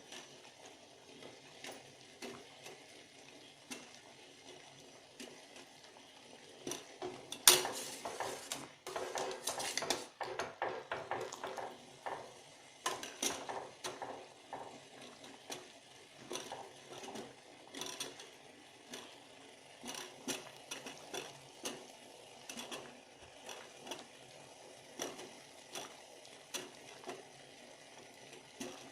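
A metal spoon clinking and scraping against a metal pot while the decoction is stirred and handled. There is one loud clank about seven and a half seconds in and a busy stretch of clatter just after it, then lighter knocks roughly once a second.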